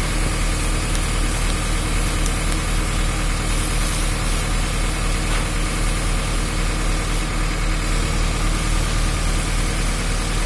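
Diesel engine of a JCB excavator idling steadily, an even low drone that holds without change.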